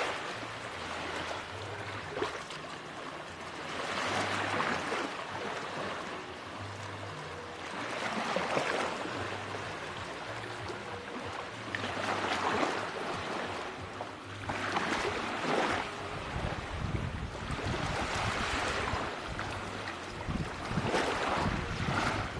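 Sea waves breaking on a beach, one every three to four seconds, each a rush of surf that swells and fades. A low rumble joins in during the second half.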